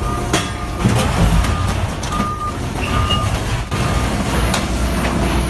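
Heavy machine's diesel engine running with a reversing alarm beeping at a steady pace, mixed with scattered knocks and clanks.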